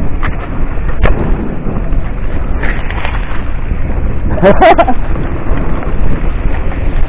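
Wind buffeting the camera microphone over the low rumble of a mountain bike rolling down a dirt trail, with a couple of sharp knocks from the bike in the first second and a brief pitched sound about four and a half seconds in.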